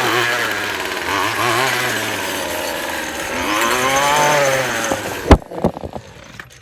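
Gas string trimmer (weed eater) engine running, revving up and easing off twice, then shutting off about five seconds in. A sharp knock and a few smaller clicks follow.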